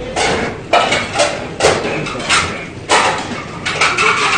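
Spicy champon noodles being slurped and eaten: a run of short, loud slurps and mouth noises, about one every half second to second.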